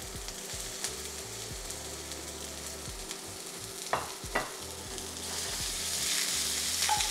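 Pepper and vegetable strips sizzling as they stir-fry in a frying pan, with a wooden spoon stirring them. The sizzle grows louder near the end, and a few short knocks come through about a second in and again around four seconds in.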